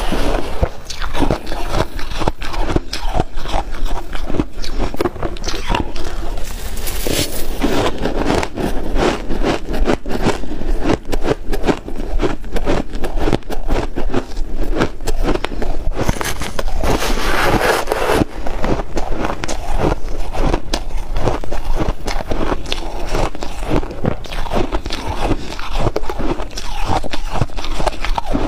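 A spoon scraping and scooping packed shaved ice in a glass dish, and mouthfuls of the ice being bitten and crunched close to a clip-on microphone: a dense, unbroken run of fine crackles.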